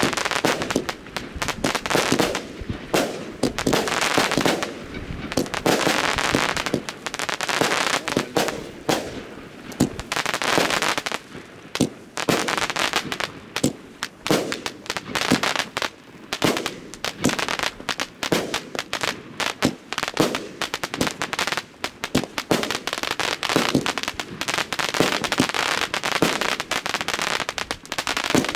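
Consumer firework cakes firing shot after shot: a steady string of sharp bangs, one or two a second, with crackling between them.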